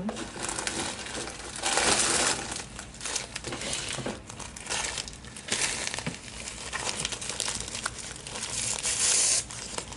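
Crinkling and rustling of craft supplies being rummaged through while searching for a tinsel stem, louder in stretches about two seconds in and again near the end.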